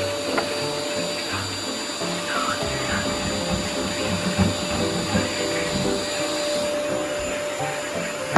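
Electric woodworking power tool running steadily with a constant motor whine while shaping a new wooden bottom rail for a sliding door, over background music.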